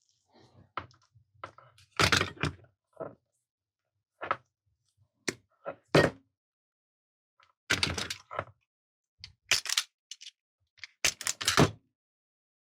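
About a dozen irregular knocks and clicks in several short clusters: tools and parts being handled and set down on a workbench during the cord repair. The loudest come about two seconds in and about six seconds in.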